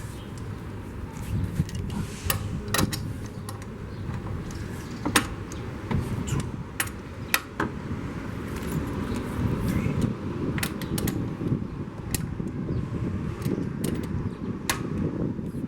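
Scattered sharp metal clicks and clinks of a socket and lug nuts being worked off a car's rear wheel, over a steady low rumble.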